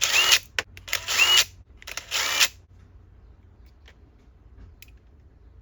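Cordless power driver backing out the small screws of a chainsaw carburetor's diaphragm cover, three short spins, each starting with a quick rising whine. It stops about two and a half seconds in.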